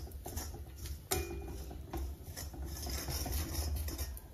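A metal spoon scraping and stirring a dry, thick mix of fried onion, flour and spices around an iron kadhai, with a rasping sound at each stroke. A sharp knock against the pan comes about a second in.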